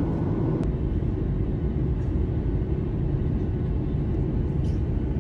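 Steady roar of a Boeing 737 airliner's jet engines and airflow heard from inside the cabin during descent, with a faint steady hum underneath.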